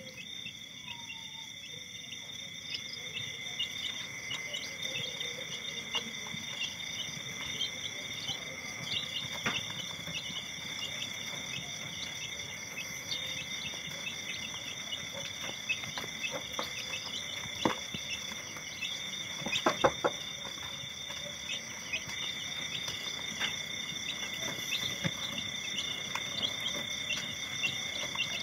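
Steady chorus of night insects chirping, with chicks peeping softly and a few sharp knocks, the loudest pair about twenty seconds in.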